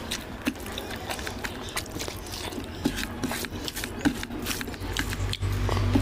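Close-miked eating sounds: wet chewing and lip smacks, with a hand squishing oily rice and mutton curry on a plate, heard as many small wet clicks. A steady low hum comes in near the end.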